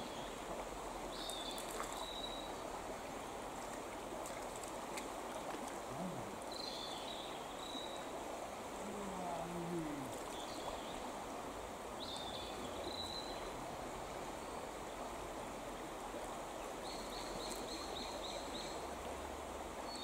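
Mountain stream water running steadily, with short high chirps recurring every few seconds.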